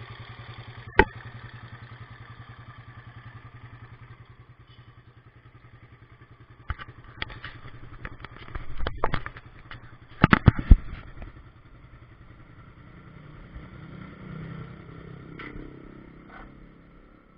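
Suzuki Satria FU 150 single-cylinder engine idling with a clattering rattle, which the owner puts down to a noisy cam chain. A sharp knock comes about a second in, and a cluster of loud clacks and knocks falls around the middle.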